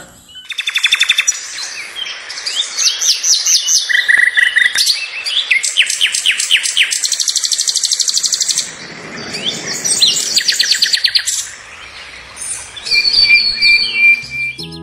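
Small songbirds singing: a string of rapid trills and quick repeated chirps, changing every few seconds with short breaks, ending in a few clear whistled notes.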